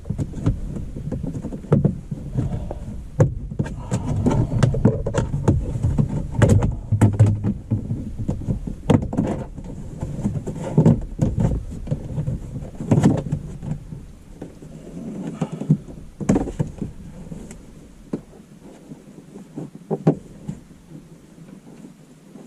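Plastic interior trim panels of a car being handled, pressed and snapped back into place: irregular clicks and knocks with rubbing and handling noise, busy at first and sparser after about two-thirds of the way through.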